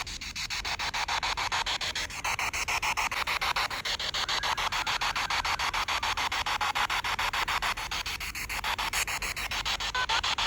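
Spirit box sweeping through radio stations: a steady hiss of radio static chopped into rapid, even pulses several times a second.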